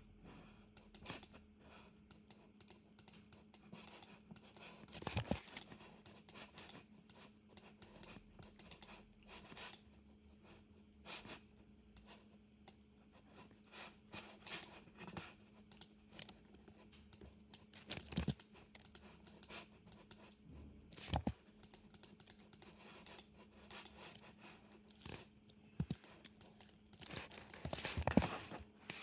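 Irregular clicking of a computer keyboard and mouse, with a few louder clicks spread through and a cluster near the end, over a faint steady hum.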